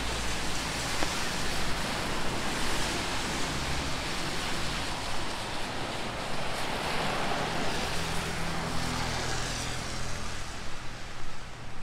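Rain falling, mixed with a vehicle on a wet road: a steady hiss of water and tyres over a low engine hum, swelling through the middle and thinning near the end.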